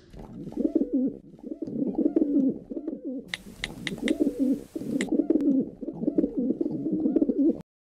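Domestic pigeons cooing, a steady run of low, wavering coos that cuts off suddenly near the end. About halfway through, a brief hiss with a few sharp mouse clicks comes in over the cooing.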